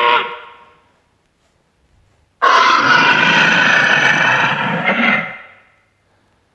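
Movie alien-creature sound effect: one loud, harsh creature call lasting about three seconds, starting about two seconds in, with the tail of an earlier call dying away at the start.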